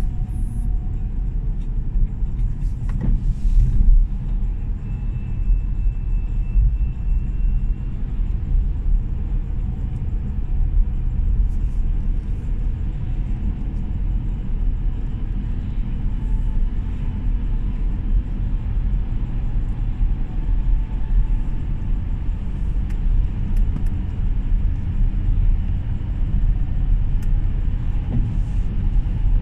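A car driving along a road, its steady low rumble of tyre and road noise.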